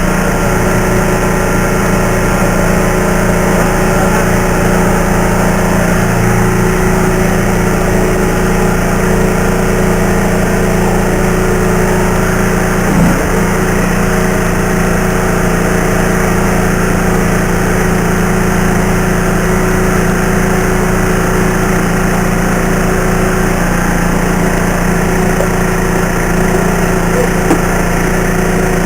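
An engine running steadily with a constant low hum, over a dense even hiss; a single brief knock about 13 seconds in.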